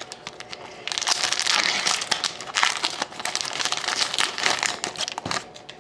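Foil wrapper of a hockey card pack crinkling and crackling as it is pulled open by hand. The sound starts about a second in and stops shortly before the end.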